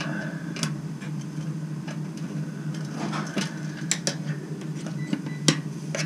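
Scattered light metallic clicks and taps from a screwdriver working at the sheet-metal inner burner door of a Bradford White gas water heater, over a steady low hum.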